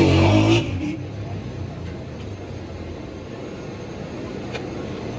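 A motor vehicle engine, loud for about the first half second and then dropping away, leaving a steady low background hum.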